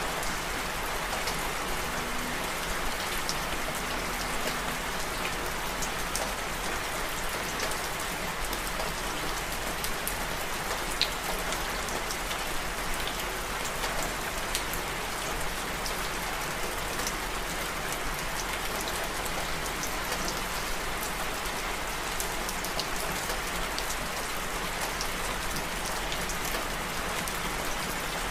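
Steady rain falling: an even hiss with scattered drop ticks throughout.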